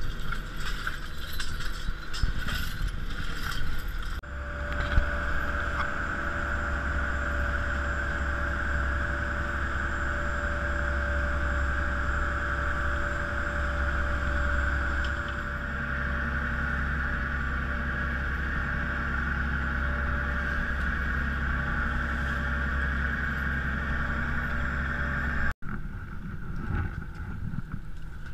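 A fishing boat's motor running steadily with a constant low hum and a steady whine, starting and stopping abruptly. Before and after it there is rougher noise of wind and water, with clicks and rattles.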